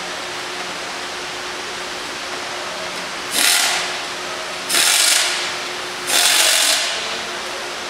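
Three short hissing bursts about a second and a half apart, starting about three seconds in, each fading out, over a steady workshop hum with a low tone.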